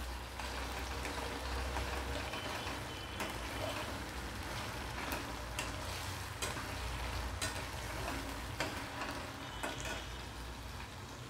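Red chilli and garlic paste sizzling as it fries in hot oil in a stainless steel kadhai, with a steel spatula scraping and clicking against the pan now and then as it is stirred.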